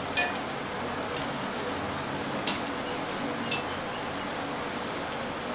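Medu vadai deep-frying in hot oil, a steady sizzle, while a wire-mesh spider skimmer clinks against the metal kadai a few times as the vadais are turned over.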